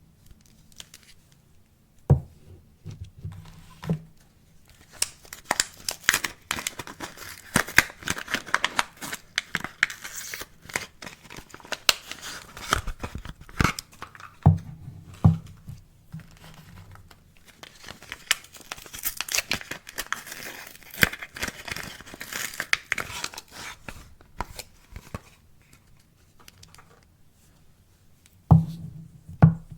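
Soap wrapping being torn open and crumpled by hand: dense crinkling and tearing in two long stretches, with a few sharp knocks about two seconds in, midway and near the end.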